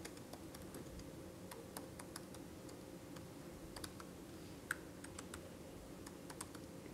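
Keys of an Apple laptop keyboard being typed on, faint irregular clicks as a terminal command is entered.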